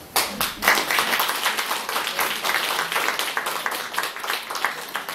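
A small audience applauding. The clapping starts suddenly and thins out near the end.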